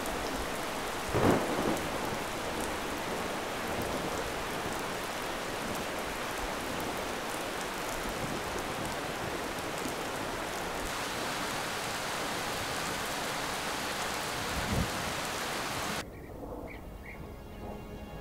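A stream runs with a steady rushing water noise, and two brief louder bumps come about a second in and near the end. The water noise then cuts off abruptly to soft music with faint bird chirps.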